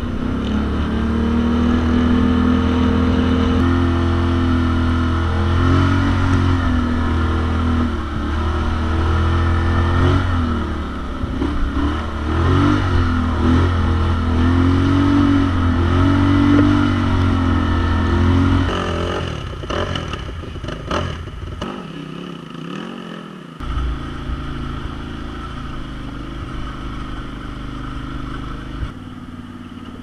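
Polaris Sportsman XP 1000 ATV's twin-cylinder engine under way, its pitch rising and falling with the throttle. About nineteen seconds in it becomes quieter and steadier, with a few knocks as the quad rolls over rough ground.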